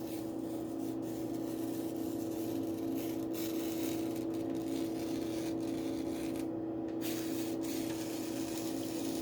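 A steady hum with several even pitched tones over a faint hiss, with no separate strokes or cuts.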